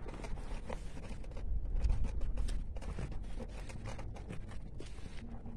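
Wind buffeting a phone's microphone in low rumbling gusts, strongest about two seconds in, with scraping and rustling handling noise.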